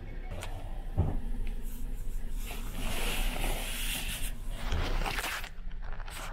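Handling noise close to the microphone: a thump about a second in, then a few seconds of rustling, over the steady low hum of the ferry.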